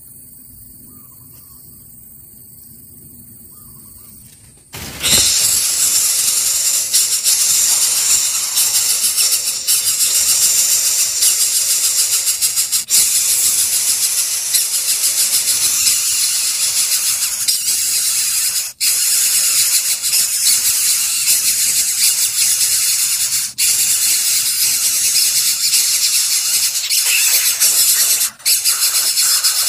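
Coucal chick giving a harsh, hissing begging squeal that starts suddenly about five seconds in and keeps going, broken by three brief gaps.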